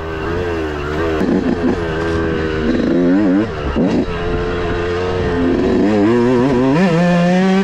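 2018 Yamaha YZ125's single-cylinder two-stroke engine revving up and down under load on a trail ride, its pitch rising and falling with the throttle several times, then climbing steadily near the end. It has just been rejetted to a 420 main and 37.5 pilot jet, which the rider calls pretty dang good, if probably still a tiny bit rich.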